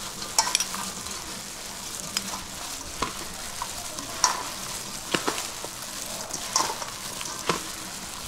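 Plastic-gloved hands mixing chopped chicken larb in a stainless steel bowl: a steady wet rustling and crackling, with irregular sharp clicks and taps.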